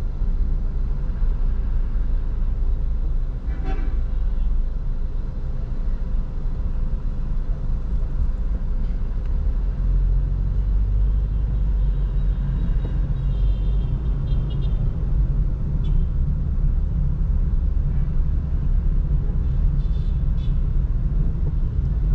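Car on the road: a steady low rumble of engine and road noise, with brief horn toots from traffic about halfway through and again near the end.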